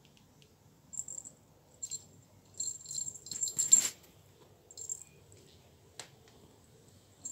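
A small jingle bell jingling in short bursts, loudest a little before four seconds in, with a single sharp click about six seconds in.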